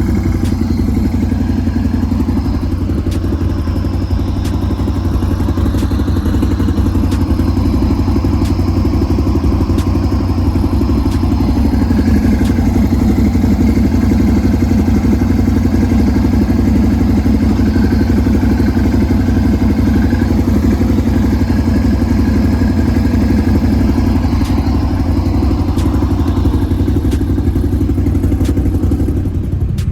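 Can-Am Renegade X mr 1000R ATV's V-twin engine running steadily under way, with scattered clatter and knocks.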